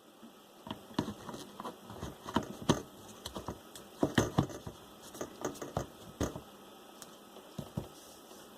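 Irregular clicks and light knocks of hand work on a dishwasher: tools, screws and plastic parts being handled while its drain pump is swapped. The clicks thin out after about six seconds.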